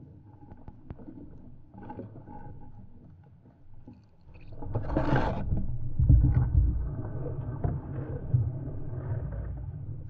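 Water moving against an underwater camera as the diver swims: a low rumble with scattered knocks, a short loud rush of noise about five seconds in, then heavier low rumbling.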